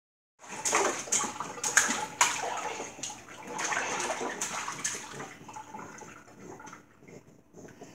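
A baby splashing with its hands in water in a stainless steel kitchen sink: irregular slaps and splashes, busy at first and tapering off over the last few seconds.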